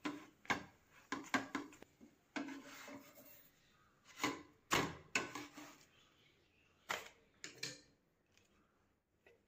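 Irregular sharp knocks and clatters of things being handled, about a dozen over the first eight seconds, then quiet.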